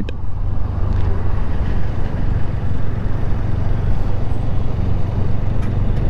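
Steady low rumble of riding on a highway: motorcycle engine and road noise mixed with wind on the rider's microphone.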